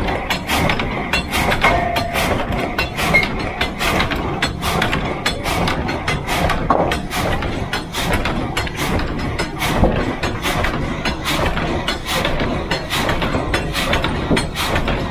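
Water-powered sawmill running: a steady, rhythmic mechanical clatter of about three knocks a second over a dense, continuous din.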